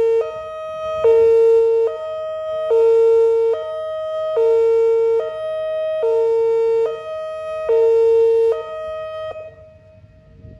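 Whelen WPS-2902 electronic speaker siren sounding its hi-lo warning tone during a test, alternating evenly between a higher and a lower pitch about every 0.8 seconds. The tone cuts off about a second before the end.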